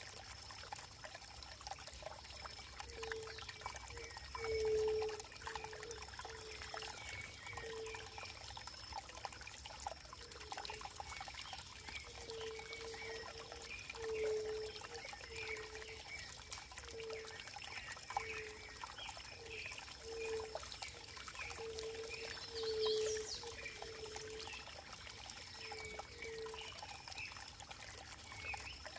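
Running water trickling and pouring, with a string of short gurgling notes about once or twice a second.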